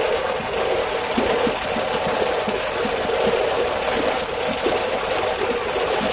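Belt-driven rag-shredding machine running, tearing old cloth into fibre for mattress and quilt stuffing: a steady mechanical hum with a fast, irregular clatter.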